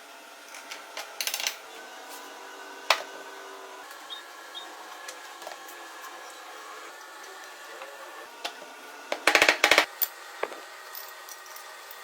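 Sharp metallic clicks and clatter from working a homemade rivet press and handling small parts: a loud single click about three seconds in and a quick rattling run of clicks near the end, over a faint steady background.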